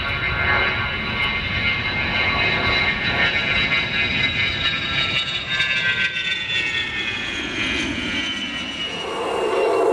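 A-10 Thunderbolt II's twin turbofan engines whining as the jet flies past, a high whine over a rushing noise that slowly falls in pitch.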